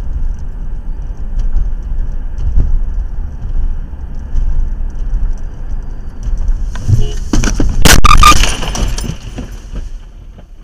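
Steady road rumble of a moving car, then a car crash about seven seconds in: several sharp knocks and a loud crunch, loudest near eight seconds, with a high hiss that fades over about two seconds.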